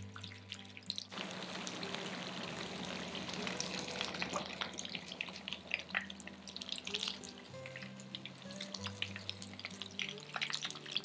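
Spring rolls deep-frying in oil in a frying pan: a steady sizzle full of crackles that grows suddenly louder about a second in. They are in the last hot stage of frying, turning crisp just before being lifted out.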